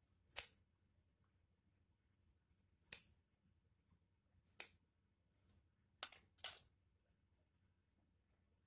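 Scissors snipping through wool yarn, trimming a pom-pom: about half a dozen short snips at irregular intervals, the last two close together.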